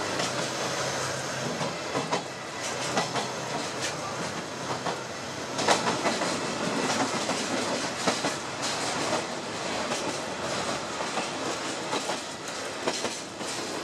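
Sagano Scenic Railway trolley train running through a long tunnel, heard from an open car with no side walls and a grated floor: a steady rolling din of steel wheels on rail with irregular clickety-clack from the rail joints and a sharp clack about six seconds in.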